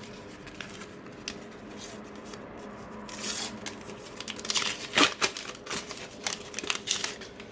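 A sticker pack's wrapper torn open and crinkled, with the stickers handled: light clicks at first, then a run of crackling rustles, the loudest about halfway through.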